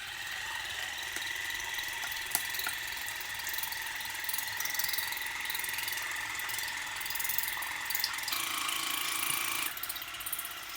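Bitvae C1 water flosser's pump running, a steady rapid pulsing whir as it sprays water; its sound shifts about eight seconds in.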